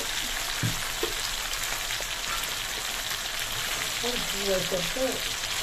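Small anchovies (netholi) deep-frying in hot oil in a kadai: a steady, dense crackling sizzle.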